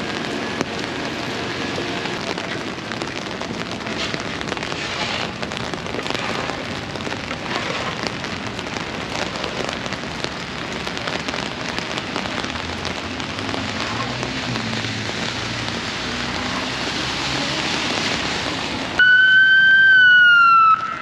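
Steady rain and wet-street noise. Near the end a police car's siren starts loudly: a high wailing tone that slides down.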